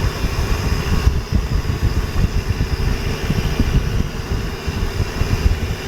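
Boat engine running steadily, with a low, uneven rumble of wind on the microphone.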